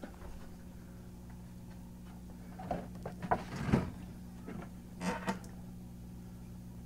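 A steady low hum, with a few knocks and rattles a little under three seconds in and again about five seconds in as the wire mesh lid of a tortoise box is handled.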